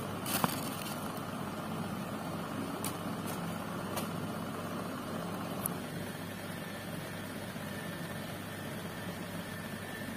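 Steady low machine hum in the background, with a few short clicks and rustles as a cotton T-shirt and its plastic bag are handled; the sharpest click comes about half a second in.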